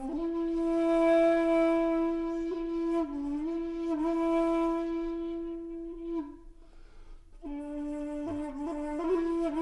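Background music: a solo wind instrument holding long, steady notes with small dips in pitch, breaking off briefly about two-thirds through and then resuming.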